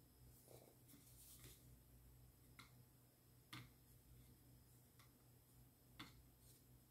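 Near silence over a steady low hum, broken by about six faint, short clicks and taps from a small plastic camera being turned and handled in the hands.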